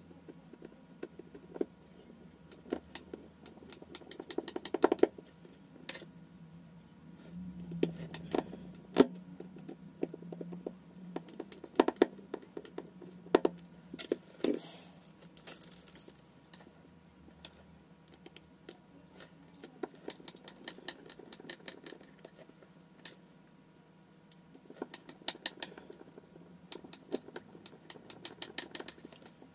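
Small metal repair tools, tweezers and a precision screwdriver, clicking and tapping against a smartphone's frame and a silicone work mat while it is taken apart: clusters of quick sharp clicks with pauses between them.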